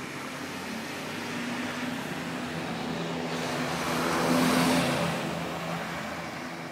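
A car passing by, its engine and tyre noise swelling to a peak about four and a half seconds in and then fading away.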